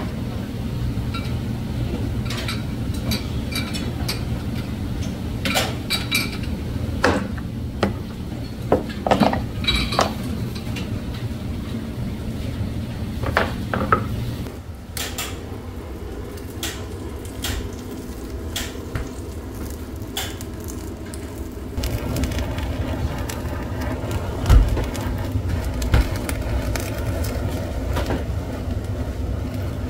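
Sushi kitchen work: scattered clicks and knocks of a plastic sushi-press mold and hands on a cutting board over a steady low hum. After a change about halfway through, a steady hiss sets in from about two-thirds of the way, fitting a handheld gas torch searing mackerel fillets, with occasional knocks.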